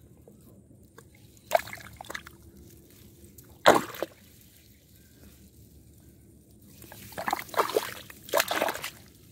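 Muddy water in a flooded hole in the ground splashing and squelching as an arm is pulled out of it and pushed back in: a short splash about a second and a half in, a sharp one near the middle, and a longer run of sloshing near the end.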